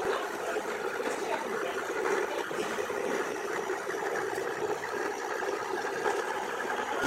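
Garden-scale model Billard railcar running along its track, a steady even hum of motor and wheels.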